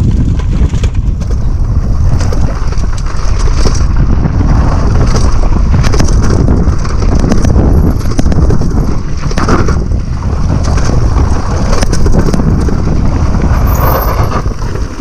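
Mountain bike ridden fast down a bumpy dirt trail: a steady low rumble of wind buffeting the action camera's microphone, with frequent knocks and rattles as the tyres and frame hit bumps.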